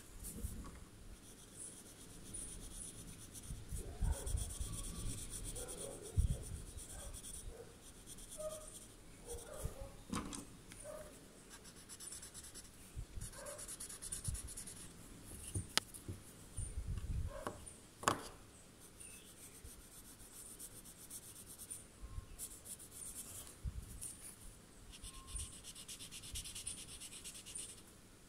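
Pencil and paper blending stump rubbing on a Zentangle paper tile during shading, in stretches of soft scratchy strokes, with a few soft bumps and a couple of sharp clicks from handling the tile and tools.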